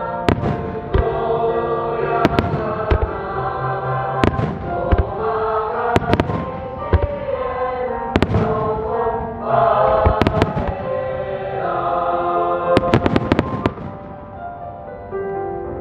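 Aerial firework shells bursting with sharp bangs every second or two, then a rapid cluster of reports about thirteen seconds in, over continuous music with sustained sung-sounding notes.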